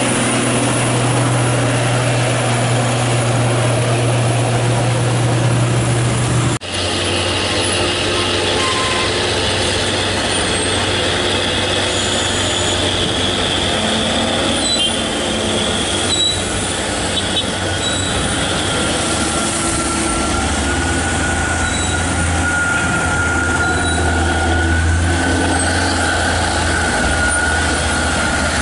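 Diesel engines of heavy Hino dump trucks running as the trucks drive by, a steady low drone that cuts abruptly about six and a half seconds in and resumes at a lower pitch. A high steady whine joins it through the last third.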